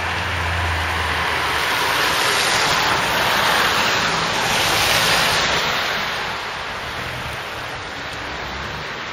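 Rain hissing on a wet street, swelling louder from about two to six seconds in. A low engine hum fades out during the first second.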